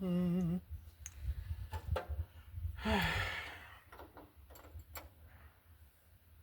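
A person's heavy sigh about three seconds in, after a short drawn-out vocal sound at the start, with a few sharp clicks and knocks of work on the battery.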